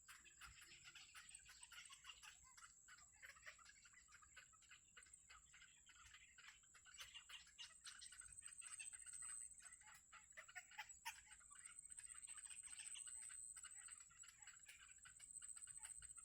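Faint, rapid chirping and ticking from birds, over a steady high-pitched whine.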